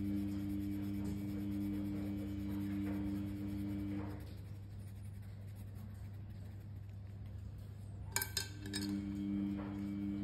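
Coloured pencil scratching softly on paper while shading, then a quick cluster of sharp clinks about eight seconds in as the black pencil is put down and an orange one picked up.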